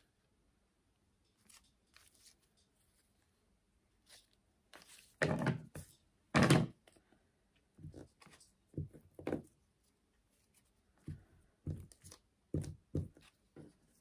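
Paper and art markers handled on a craft table: scattered short rustles, taps and scrapes, with two louder ones about five and six and a half seconds in.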